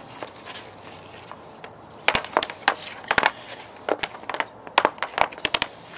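Hockey stick blade and puck clacking on a shooting pad: a quick, irregular run of sharp clicks and taps starting about two seconds in.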